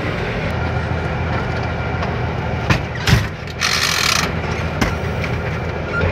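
Heavy truck's diesel engine running, heard from inside the cab. A few sharp knocks and rattles come near the middle, and a short hiss follows a little after.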